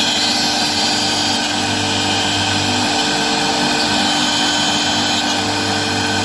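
CNC router spindle running with a small end mill cutting short slots in a Corian solid-surface sheet: a steady whine over the hiss of the cut.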